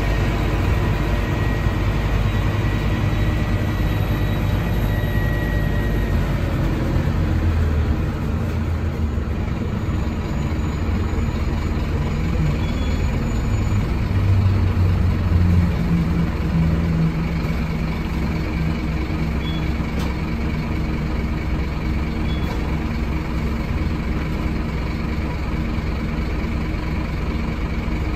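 Scania N310UA bus heard from inside the passenger cabin while moving: the engine and ZF Ecomat automatic gearbox running, with the engine note rising and falling a few times as the bus changes speed.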